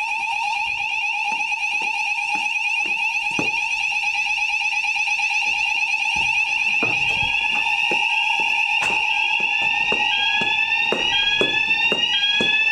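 Fire alarm sounders going off in a weekly alarm test: a loud, steady two-pitch alarm tone, joined about six or seven seconds in by a second sounder with a fast repeating rising sweep.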